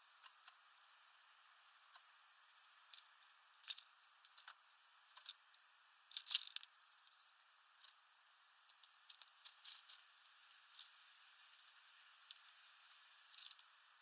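Eurasian tree sparrows pecking at sunflower seeds on a feeder tray: irregular faint, sharp clicks and cracks of beaks on seeds and husks, with the loudest cluster a little after six seconds in.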